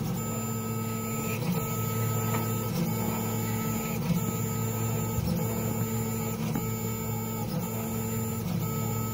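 FDM 3D printer running a print: a steady motor whine and cooling-fan hum from the moving print head, broken by a short change in the sound every second or so.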